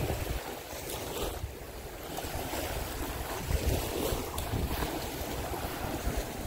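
Wind buffeting the microphone in uneven gusts over the hiss of small waves washing on the shore.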